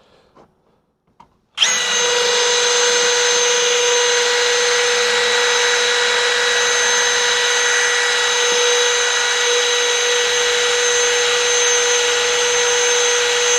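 Power drill running continuously at one steady speed for about thirteen seconds, starting abruptly a second and a half in.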